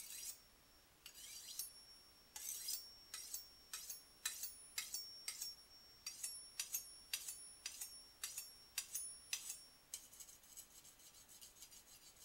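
Dull kitchen knife being sharpened by hand, its steel blade drawn in quick strokes across a sharpener. About two scraping strokes a second with a faint metallic ring, turning to a rapid, continuous rasp near the end.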